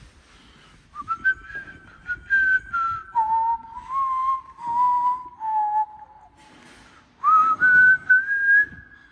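A person whistling a tune. The notes start about a second in, pause briefly about two-thirds of the way through, then pick up again on higher notes.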